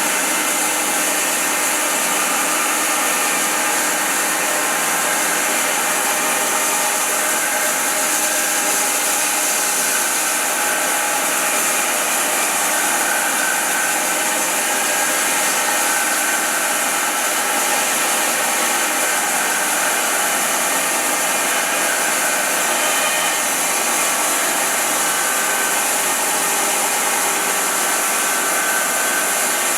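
Wide-cut bandsaw sawmill running steadily, its blade sawing through a large silver maple round, a continuous hissing noise that does not change.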